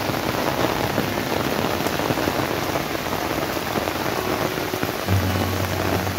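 Heavy rain falling steadily: a dense, even hiss of rain on leaves and ground.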